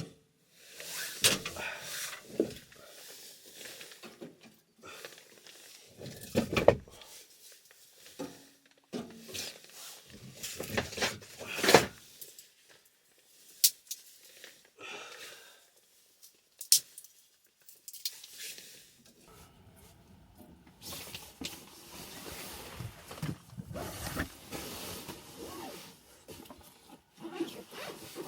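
Objects being handled and set down: irregular knocks, clicks and rustling, with a few sharp ticks.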